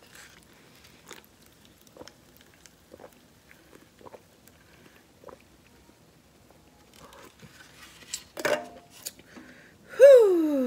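Faint chewing and mouth clicks of a person eating. About eight seconds in there is a short loud noisy sound, and near the end a loud vocal sound falling in pitch.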